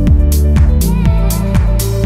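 Electronic dance music: repeated kick-drum hits over a held bass line, with bright hi-hat or cymbal strokes.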